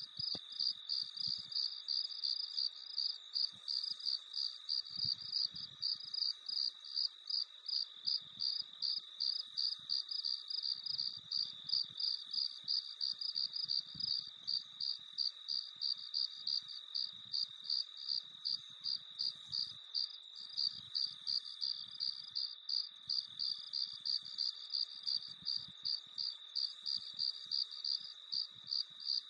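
Crickets chirping at night: a steady, even chirp repeating about two to three times a second over a continuous high trill.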